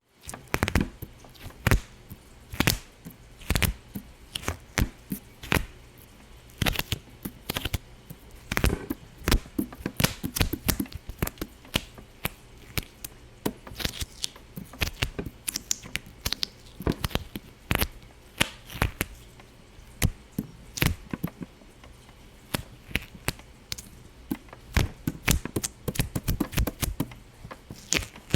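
Many sharp pops and clicks in quick, irregular clusters, with a louder single pop every second or so.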